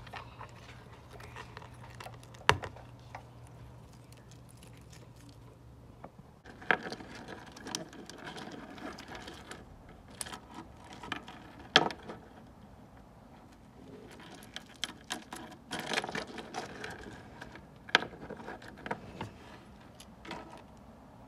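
Jointed segments of a 3D-printed articulated plastic toy clicking and rattling against each other as it is bent and handled, with a few sharp, louder clicks. A steady low hum sits under the first six seconds and then stops.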